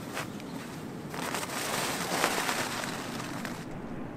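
Rustling and crinkling of ultralight Dyneema tent fabric and a sleeping pad as a person climbs in and sits down. It swells about a second in, is loudest a little past the middle, and fades near the end.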